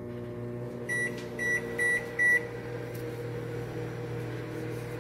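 Danby countertop microwave oven running with a steady hum. About a second in come four short, high keypad beeps, about half a second apart.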